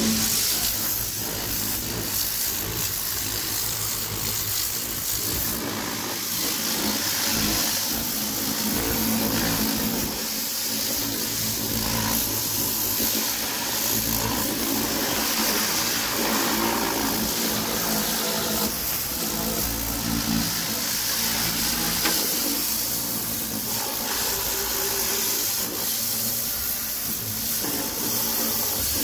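High-pressure plunger-pump washer spraying water through a turbo nozzle: a steady, loud hiss of the jet, with the pump motor humming underneath.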